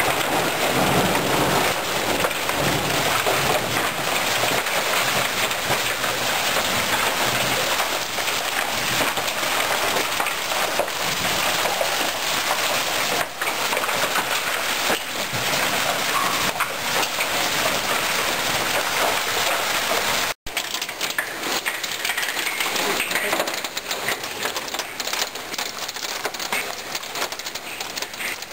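Hailstones and heavy rain pelting down on surfaces, a dense, continuous clatter of small impacts. The sound cuts out for an instant about 20 seconds in, then goes on a little quieter.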